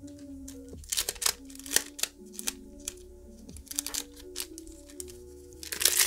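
Soft background music with held notes, over the crinkle and clicks of a trading-card booster pack and its cards being handled. The loudest rustle comes near the end, as the stack of cards is slid out of the pack.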